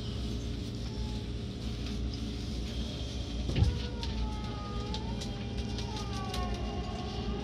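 Running sound from inside a Seibu 6000 series train car: a steady low rumble with a single thump about halfway through. After the thump, the whine of the Hitachi GTO-VVVF traction inverter sets in as several tones that glide up and down in pitch.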